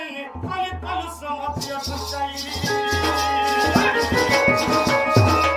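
Folk dance-drama accompaniment: a barrel drum beats a steady rhythm with high, rattling percussion over it. From about halfway in, a held melody line joins, and the music grows a little louder.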